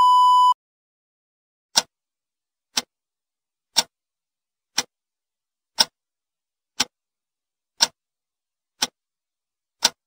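A steady test-tone beep that goes with colour bars, cutting off about half a second in. Then a clock ticking once a second, nine sharp ticks.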